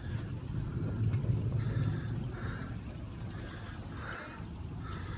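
Rain falling with rainwater pouring and trickling, a steady watery rush that swells to a deeper rumble about a second in.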